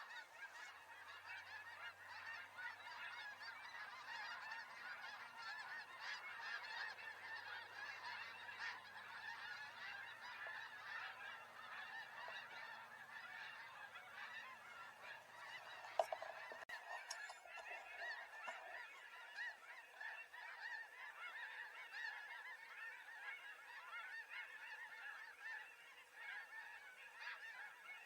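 Snow geese calling faintly: dense, continuous honking and chatter with no breaks, with a single short click a little over halfway through.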